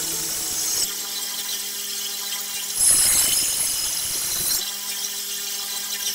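Belt grinder running with a steady motor hum while a steel knife blade is pressed to the belt. Grinding hiss at the start, and a louder one about three seconds in lasting nearly two seconds.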